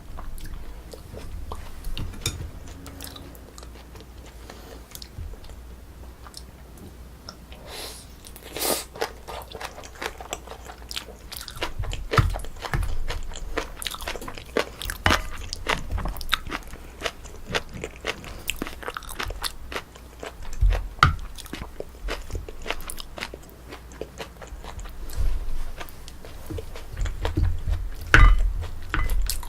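A person chewing and biting a meal of Korean braised spicy chicken close to the microphone: irregular clicks and crunches, with a few low thumps, busiest near the end.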